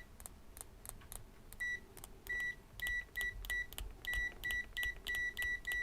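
Kaiweets HT118E multimeter's continuity buzzer giving a run of about a dozen short, high beeps of uneven length as the test leads make and break contact. The beeps start about a second and a half in and come faster toward the end, with light clicks between them.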